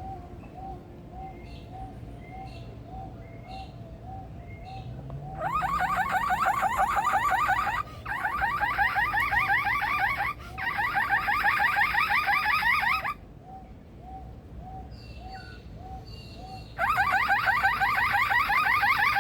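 A male superb lyrebird mimicking a car alarm. Loud, fast rising warbles come in stretches of two to three seconds: three in a row with short breaks about five seconds in, and another near the end. Between them a softer repeated note sounds about twice a second.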